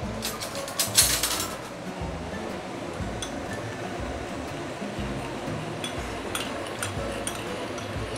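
Metal spoon clinking against a small ceramic bowl while stirring a starch-and-water slurry for thickening the sauce. A quick run of clinks comes about a second in and is the loudest part, followed by scattered single clinks.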